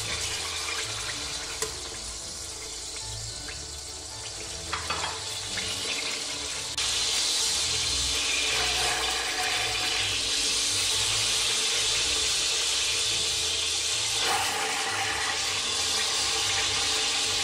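Beef roll searing in hot oil in a stainless-steel pressure cooker: a steady sizzle that suddenly gets louder about seven seconds in, with a few light clicks of tongs against the pot.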